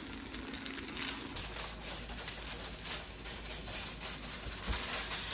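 Spatula stirring and pressing thick rice-and-coconut dough in a non-stick pan, making a run of soft, irregular scrapes and pats as the batter thickens into dough.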